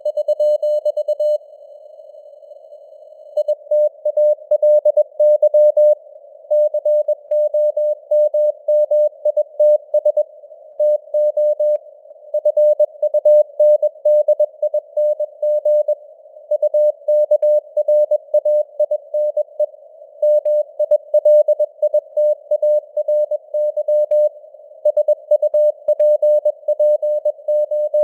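Morse code sent at 21 words per minute as a keyed tone of about 600 Hz, over a narrow band of simulated shortwave receiver hiss, with the signal strength fading up and down (QSB). The keying stops for about two seconds near the start and for a moment about halfway, between words.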